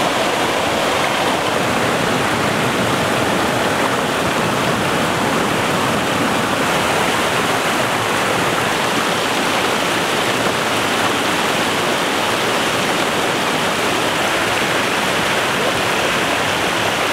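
Fast-flowing rocky stream rushing and churning, a steady loud water noise.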